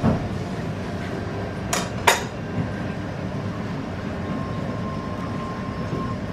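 Two sharp clinks of tableware close together about two seconds in, with a soft knock at the start, over a steady low rumble of room noise at a sushi counter.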